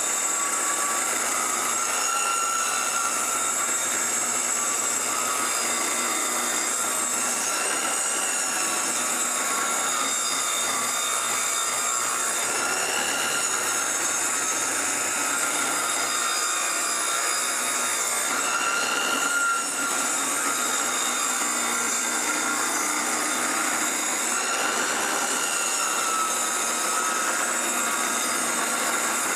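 Ryobi circular saw running continuously as it is pushed lengthwise through a cedar deck board, ripping it along a marked line. Its steady whine wavers slightly in pitch every few seconds as the blade works through the wood.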